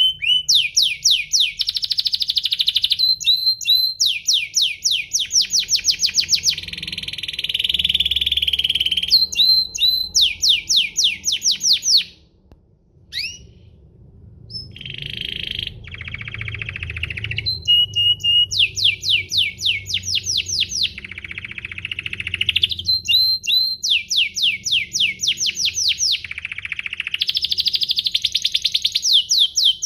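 Domestic canary singing a long, loud song of fast repeated trills and rolls, high-pitched, with a short break about twelve seconds in before it carries on.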